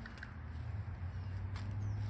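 Footsteps of a person walking, with a few faint bird chirps.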